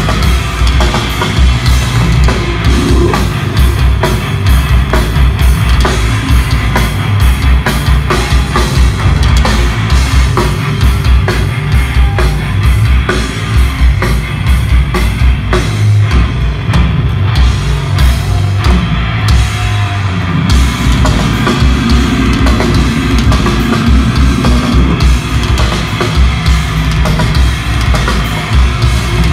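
A death metal band playing live and loud: heavily distorted guitars over fast, pounding bass-drum beats, heard from within the audience.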